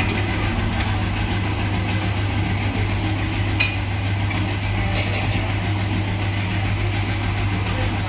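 Steady low machine hum in a tyre-fitting workshop, with two short clicks, about one second and three and a half seconds in.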